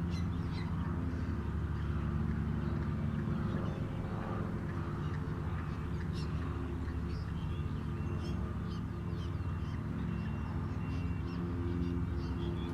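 Moorhen chicks peeping: many short, high calls scattered throughout, over a steady low hum.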